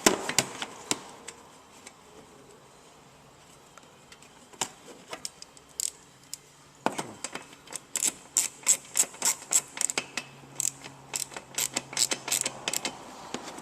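Ratchet wrench clicking as a nut is tightened: a few sharp tool clicks at the start, then a long run of quick, fairly even clicks in the second half.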